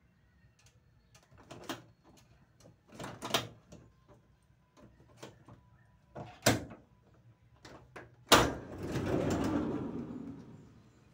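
Toyota HiAce sliding door's latch mechanism being worked by hand: a few separate clicks and clunks, then a loud clunk about eight seconds in followed by about two seconds of rumbling as the door slides along its track.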